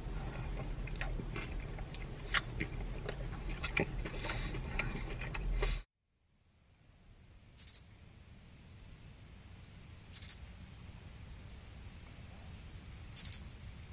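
Chewing with small mouth clicks for about six seconds. After a sudden cut to silence comes a crickets sound effect: a steady, pulsing high cricket trill with three louder chirps, the comic 'crickets' gag for an awkward silence.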